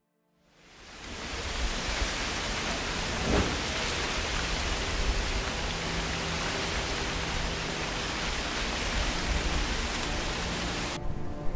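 A steady, even rushing hiss with no rhythm or tune. It fades in over the first second and cuts off abruptly near the end.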